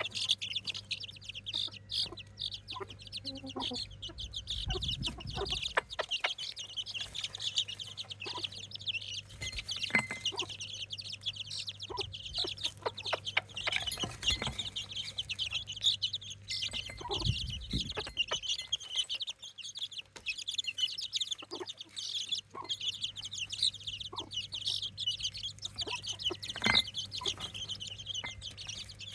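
A group of baby chicks peeping nonstop, many high-pitched cheeps overlapping, with a few knocks and taps now and then and a low steady hum underneath.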